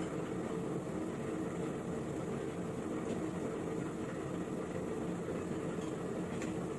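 Steady machine-like hum and hiss of kitchen background noise, with one faint tap near the end.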